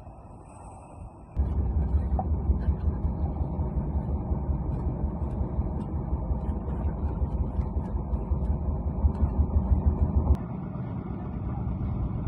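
Engine of a concrete slab-casting machine running steadily with a low rumble. It cuts in suddenly about a second and a half in and drops a little in level near the end.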